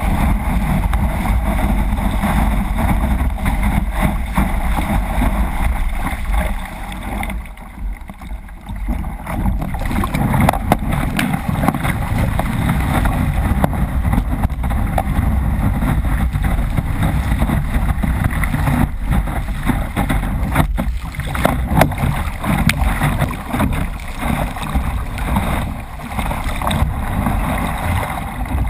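Kayak surfing through breaking waves: rushing whitewater and spray splashing over the bow, with wind buffeting the microphone. The rush dips briefly about seven seconds in.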